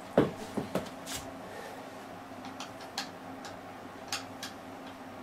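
Hands handling a studio monitor's wooden cabinet while pressing its rubber feet into place: a sharp knock about a quarter second in, a couple of smaller knocks right after, then a few light scattered taps and clicks.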